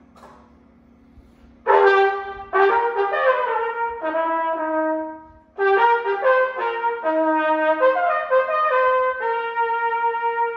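Copper trumpet playing a short tune in two phrases after a brief pause, the second phrase ending on a long held note.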